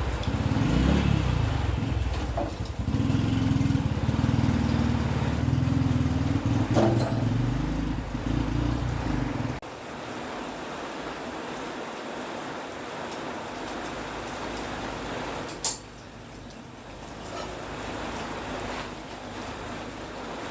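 Small motorbike engine running, its pitch swinging up and down about a second in, then steady, and stopping abruptly about ten seconds in. After that a quieter steady background with one sharp knock.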